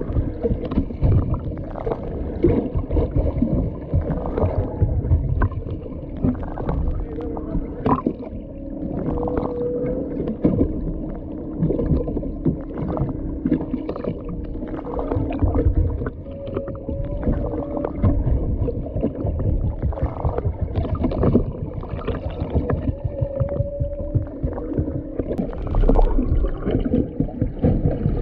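Humpback whale song heard underwater: three short pitched moans, about a third of the way in, past the middle and near the end. Beneath them run a steady low hum and a constant crackle and knocking of water noise.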